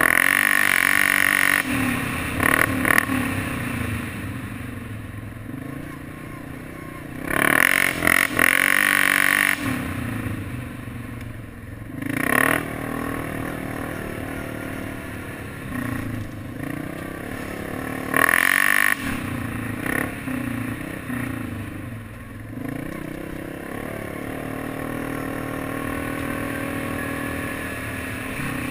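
Modded Yamaha Grizzly 700 ATV's single-cylinder engine running under way on a dirt trail. It gets louder in about four hard bursts as the throttle is opened, then drops back between them.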